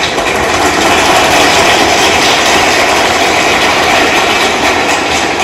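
Audience applauding: dense, steady clapping that swells in sharply just before and holds evenly throughout.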